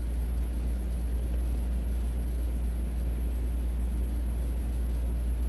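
Steady low background hum with a faint, thin high-pitched whine above it, unchanging throughout, with no distinct knocks or tool sounds.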